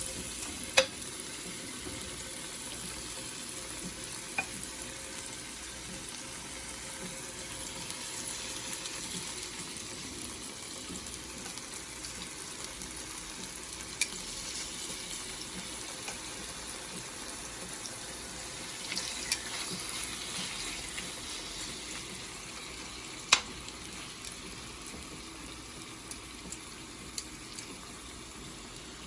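Marinated chicken thigh pieces sizzling steadily as they fry in oil in a pan to brown. A few sharp clicks break the sizzle, the loudest about two-thirds of the way through.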